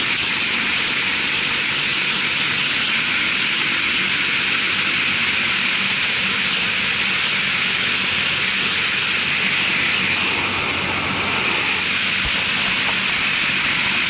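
Marley cooling tower fan running steadily after a gearbox repair and oil refill: a loud, even rush of air with a faint low hum under it, running smoothly.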